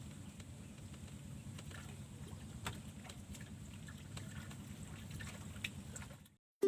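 Faint, steady low background noise with light water sounds and a few small clicks, as at the water's edge. It cuts off suddenly near the end.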